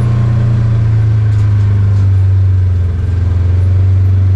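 Vehicle engine running while driving on a dirt road, heard from inside the cab: a loud, steady low drone that eases briefly about three seconds in.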